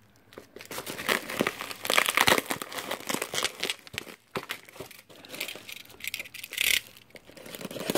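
Plastic bubble wrap around a gaming mouse box crinkling and crackling as it is handled and pulled at by hand, in quick irregular bursts.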